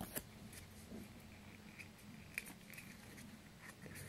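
Faint clicks and light rustling of trading cards in plastic sleeves being handled and flipped by hand, over a low steady hum.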